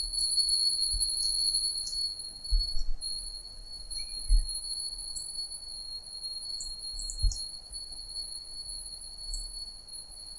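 Steady high-pitched electrical whine, with a few short low thumps.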